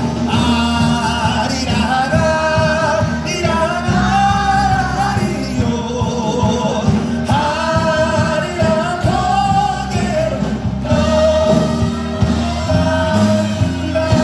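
A singer with a microphone sings a melody with wide vibrato, accompanied by a Korean traditional orchestra of zithers and keyboard.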